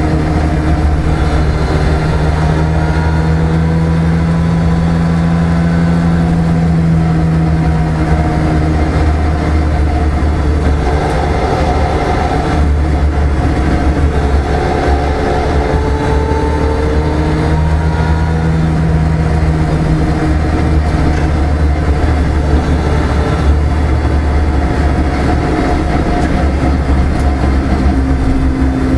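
A car engine running at road speed, with tyre and road noise, heard from inside the cabin. The engine's steady drone drops and rises in pitch a few times as the speed changes.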